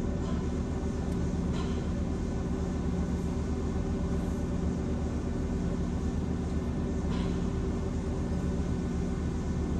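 Conveyor car wash tunnel machinery running with a steady low rumble and hum, with two faint knocks, one about a second and a half in and one near the end.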